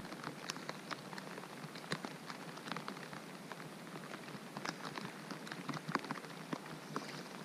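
Steady rain falling on the lake, an even patter with many small, sharp ticks of drops landing close by.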